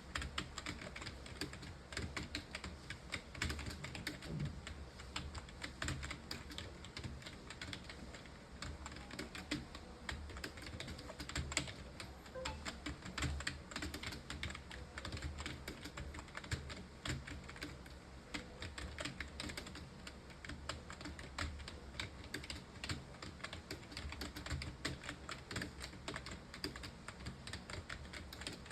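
Fast, continuous typing on a computer keyboard: a steady stream of keystrokes, several a second, without a long pause.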